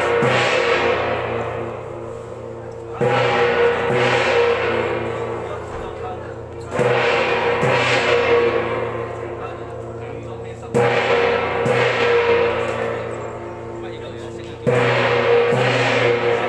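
A large gong struck slowly, about once every four seconds, each stroke ringing out with a low hum and fading before the next, with a softer second hit about a second after each stroke.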